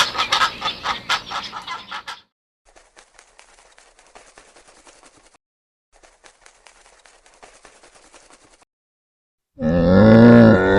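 Animal sounds from several clips: a rapid run of loud grunts for about two seconds, then faint crackly clicking, then a loud, deep animal call with a bending pitch starting near the end.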